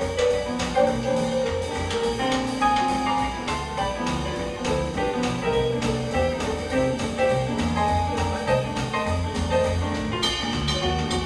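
Live jazz: a grand piano taking a solo over a walking string bass and a drum kit keeping a steady beat.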